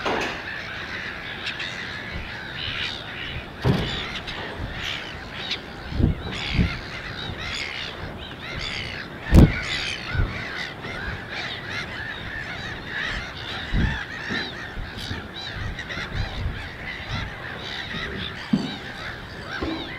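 A dense chorus of many birds calling over one another without a break. A few dull low thumps stand out, the loudest about halfway through.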